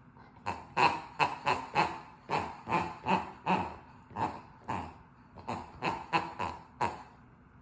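A dog's squeaky plush toy squeaking over and over as the dog chomps on it: about twenty short squeaks, each dropping in pitch, in an uneven rhythm, stopping about seven seconds in.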